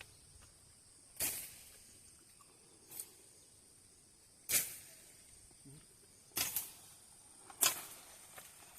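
Irregular sharp rustles and crunches, a second or two apart, from someone moving on foot through dry jungle undergrowth.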